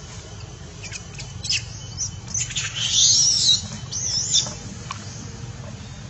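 A flurry of high-pitched animal squeaks and chirps, some gliding up and down in pitch, loudest about three seconds in, over a steady low hum.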